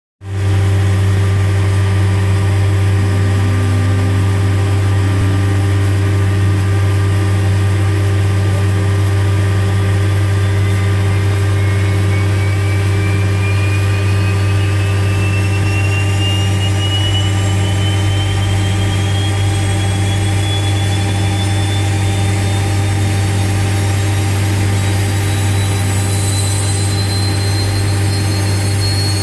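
Handley Page Victor's auxiliary power unit starting up, heard inside the cockpit: a steady low hum under a thin turbine whine that climbs slowly and evenly in pitch through the second half as the unit spools up.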